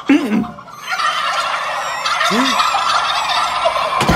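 Several cartoon characters' voices gobbling like turkeys in a rapid, overlapping chatter, starting about a second in. A short cry comes at the very start, and a sharp knock comes near the end.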